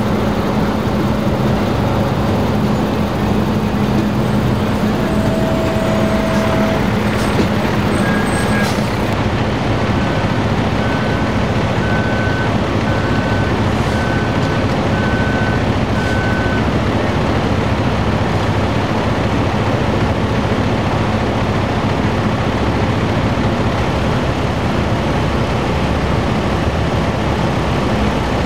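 Steady, loud engine noise from heavy rescue vehicles and equipment running at a crash extrication. A row of about seven short, evenly spaced beeps sounds in the middle.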